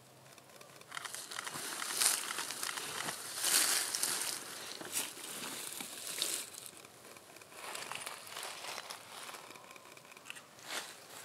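Close, irregular rustling and crinkling of dry plant stems and clothing as people move among tall dried wildflowers, with the loudest rustles a few seconds in.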